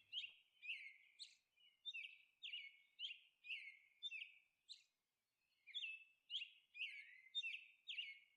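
Faint bird chirping: short, falling chirps repeated about twice a second, with a pause of about a second halfway through.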